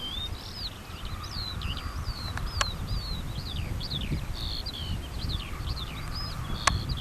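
Small songbirds chirping, a run of quick high down-slurred notes, over a low rumble. Two sharp clicks, one about two and a half seconds in and one near the end.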